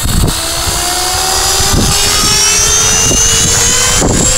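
Gaui X3 electric RC helicopter spooling up and taking off: a motor and rotor whine rising steadily in pitch over a low rumble of rotor wash.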